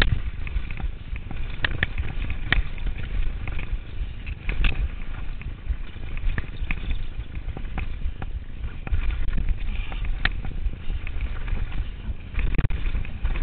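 Turner DHR downhill mountain bike rattling over a rough, rocky dirt trail at speed: tyres crunching, chain and frame clattering with frequent sharp knocks, over a heavy wind rumble on the microphone.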